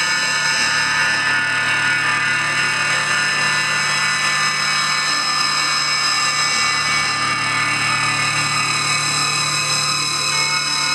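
Loud, unchanging drone of many sustained high tones with a low hum beneath, with no beat or pauses: an electronic noise drone accompanying the stage performance.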